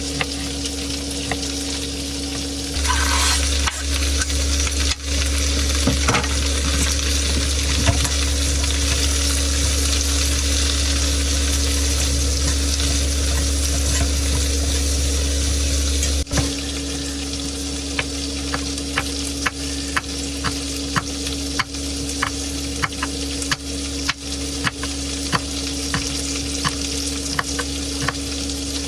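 Food sizzling in a frying pan on a one-burner stove as it is stirred, over a steady hum. From about two-thirds of the way in, light taps of the utensil on the pan repeat roughly twice a second.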